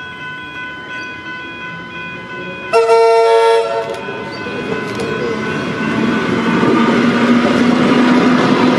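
Level crossing bells ringing with a steady pulse; about three seconds in, a Tait heritage electric train sounds one horn blast of about a second, then its running noise grows louder as it approaches and rolls onto the crossing.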